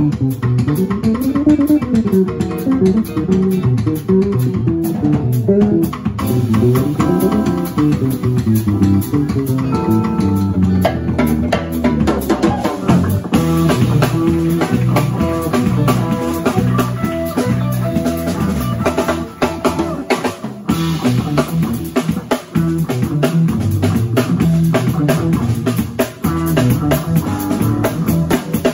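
Live instrumental band playing: electric guitar over electric bass and drum kit.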